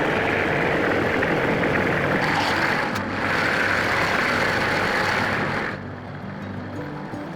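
Engine running loudly and steadily, just started after an oil change so the fresh oil circulates before the level is rechecked. It drops away suddenly near the end.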